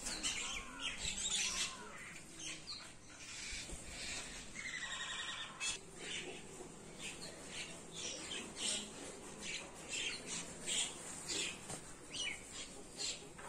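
Several birds chirping and calling, a steady scatter of short chirps, with one longer, harsher call about five seconds in.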